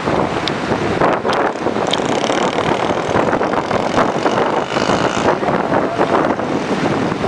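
Swat River in flood, fast floodwater rushing past in a steady loud noise, with wind buffeting the microphone.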